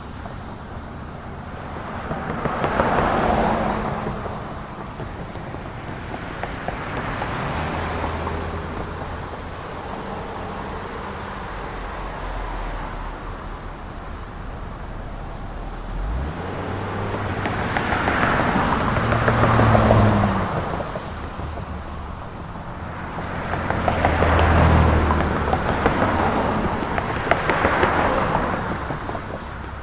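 Street traffic: a steady wash of road noise with engines running low underneath, and several vehicles passing close by, one about three seconds in and a cluster in the second half.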